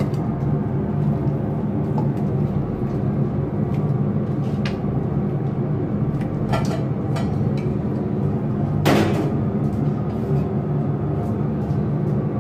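Clunks and knocks as raw deer meat chunks are set into an empty metal karahi, a few scattered and the loudest about nine seconds in, over a steady low hum.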